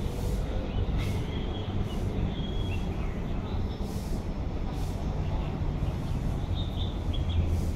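Steady low rumble of outdoor background noise, with a few faint bird chirps over it.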